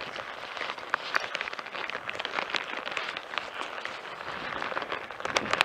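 Handling noise from a chest-strapped camera: jacket and fleece fabric rustling against the microphone, with many small clicks and scrapes as the camera is adjusted by hand.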